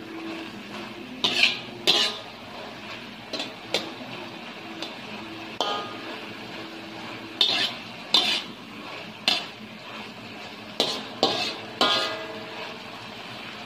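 Slotted metal spatula scraping and clanking against a metal wok as baby kailan is stir-fried, with the frying sizzle underneath. The strikes come at irregular intervals, some ringing briefly.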